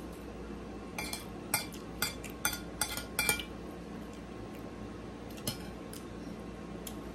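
Metal spoon clinking and scraping against a ceramic plate while scooping up food: a quick run of about ten light clinks, then a single one a little later.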